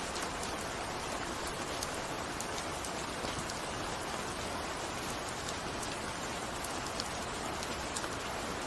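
Steady rain falling, a constant even hiss with many individual drops ticking sharply on a hard surface.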